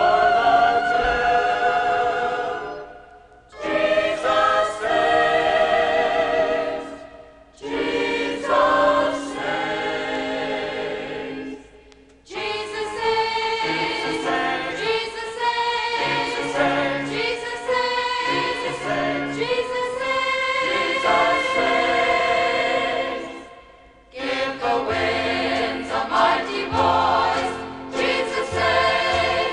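A choir singing Christian music in phrases separated by short breaths, with instrumental accompaniment and a bass line in places.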